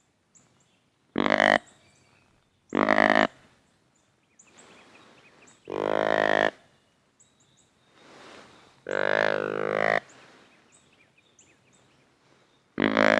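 Whitetail deer grunt call blown by a hunter to draw in a rutting buck: two short grunts, then two longer drawn-out grunts, then another short grunt near the end.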